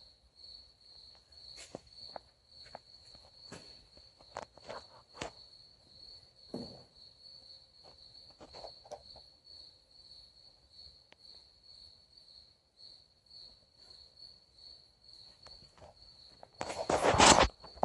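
An insect's high, steady, finely pulsing trill, with scattered faint clicks and steps. A brief loud noise comes near the end.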